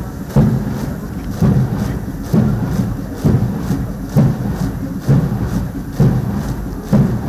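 Military parade march: a deep thump about once a second, the marching beat of massed cadets on a parade ground, over a continuous low rumbling wash.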